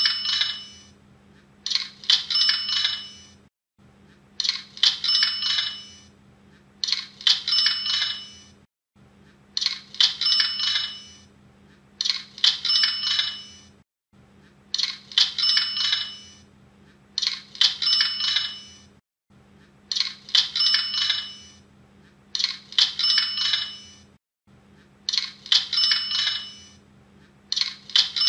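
Cash register 'cha-ching' sound effect, the Hotmart sale notification sound, played in a loop: about every five seconds two jingling rings about a second and a half apart, six times over. A faint steady hum runs underneath.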